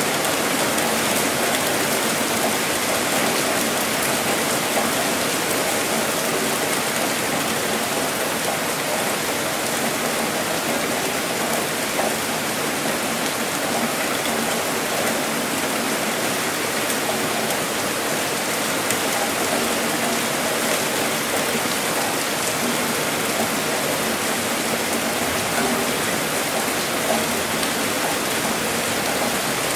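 Heavy rain pouring steadily, a dense even wash of falling drops.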